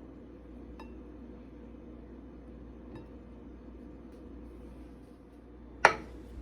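Kitchen handling sounds over a steady low room hum: a few faint clicks, then one sharp clink near the end, as toppings and utensils are handled while loading a bread pizza.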